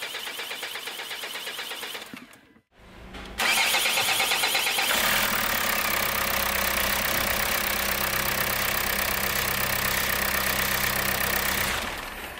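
Starter cranking a Kia Sorento's D4HA diesel engine with its injectors removed, so it spins over quickly and evenly without firing, to pump oil round until the oil-pressure light goes out. It cranks for about two seconds and breaks off briefly, then cranks again, louder, until near the end.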